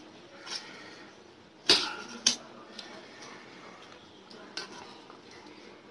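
Eating by hand from steel plates: a few sharp clinks against the metal plates, the loudest about two seconds in, followed closely by a second.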